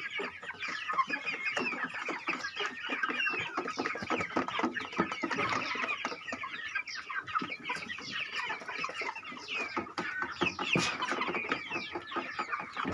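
A flock of broiler chickens clucking and cheeping, many short calls overlapping without a break.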